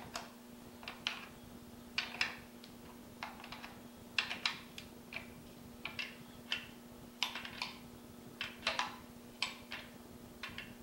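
Irregular metal clicks and clinks of a wrench on the bar nuts of a Husqvarna 455 Rancher chainsaw's side cover as the nuts are tightened down, the tool being lifted off and refitted between turns.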